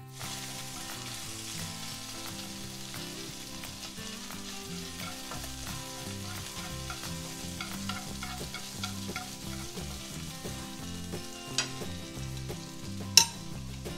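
Squid pieces sizzling in hot oil in a nonstick frying pan, with light ticks of chopsticks turning them. A sharp click sounds near the end.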